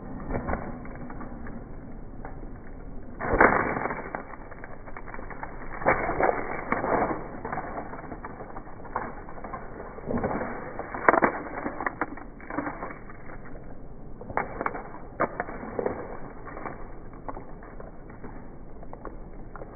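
Sledgehammer blows smashing objects: a run of heavy strikes at irregular intervals, a second to a few seconds apart, the loudest a few seconds in and again about eleven seconds in.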